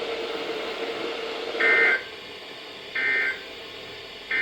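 NOAA Weather Radio broadcast hiss, then three short two-tone digital data bursts about 1.3 s apart: the EAS/SAME end-of-message code that closes the severe thunderstorm watch alert.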